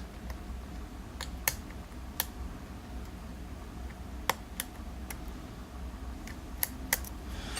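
Steel lock pick clicking and scraping against the pin stacks inside a 7-pin Zeiss Ikon euro cylinder held under tension, about ten scattered sharp clicks over a faint low hum. It is a very crunchy lock with tight tolerances.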